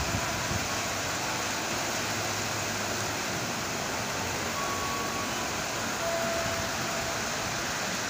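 Heavy rain falling on the station's roof canopy and platform, a steady hiss, with a couple of faint short tones in the background.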